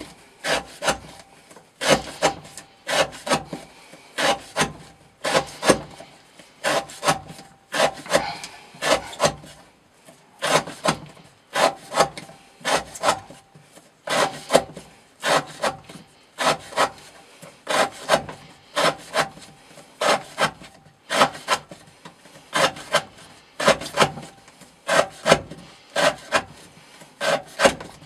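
A knife blade slicing through rope onto a wooden board, cut after cut in a steady rhythm of about two sharp strokes a second, as in an edge-retention rope-cutting test.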